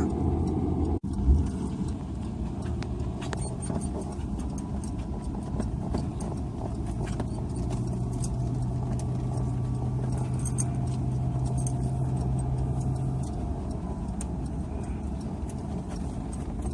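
Car running and road noise heard from inside the cabin while driving, with small rattling clicks throughout. A sharp thump about a second in.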